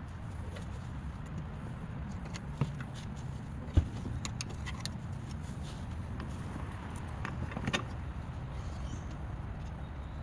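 A steady low rumble with scattered light clicks and one sharp knock about four seconds in.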